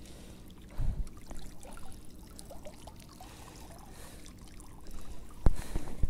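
Water splashing and trickling with small handling knocks, and a sharp click about five and a half seconds in.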